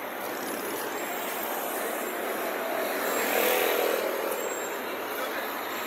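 Street noise of car engines, swelling to a peak about three and a half seconds in and then falling away.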